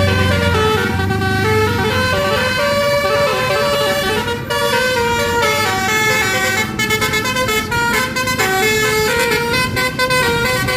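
Basuri telolet multi-tone bus horn playing a tune of held notes that step up and down in pitch. From about two-thirds of the way through, the notes turn into quick, short toots.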